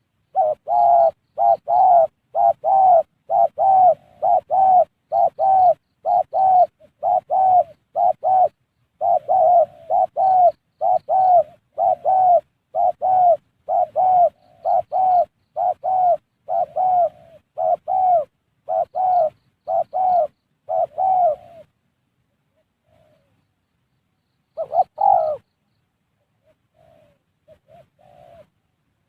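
Spotted dove (tekukur) cooing in a rapid run of short, evenly repeated coos, nearly two a second, for about twenty seconds; after a pause, a couple more coos, and faint ones near the end.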